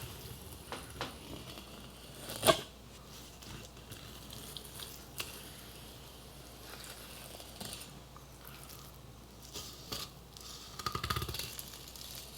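Knife cutting along the back of a lingcod fillet, soft slicing and scraping through the flesh. A sharp knock comes about two and a half seconds in, and a short rattle of clicks near the end.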